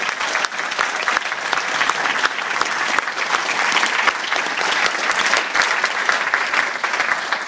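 Audience applauding steadily, with one pair of hands clapping close by.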